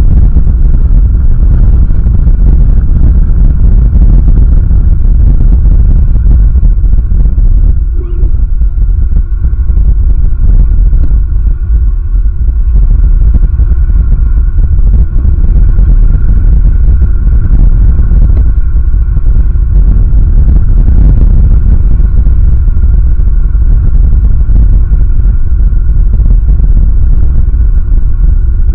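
Strong wind buffeting the eagle-nest camera's microphone: a loud, constant low rumble, with a few faint steady tones above it.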